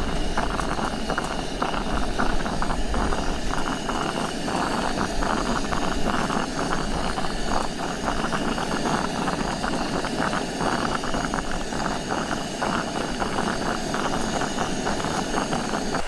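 Camera drone's propellers whirring steadily, with a few high steady tones above the rushing motor and rotor noise.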